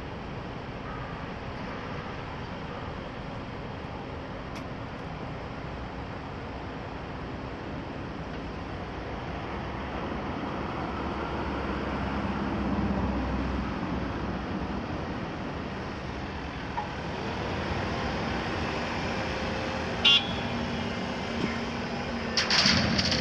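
Volvo EC300 excavator's diesel engine running steadily, swelling in level for a few seconds partway through as it works under load. There is a sharp metallic clank about 20 seconds in and a loud burst of clattering near the end.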